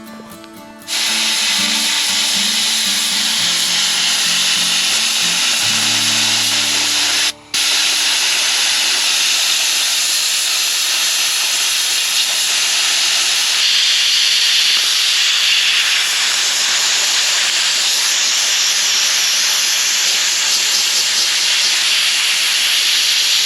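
Loud, steady hissing that starts about a second in and cuts out briefly about seven seconds in.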